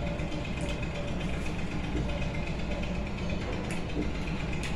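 Fingers mixing rice with bhorta on a plate, giving a few faint soft clicks and squishes, over a steady low background hum.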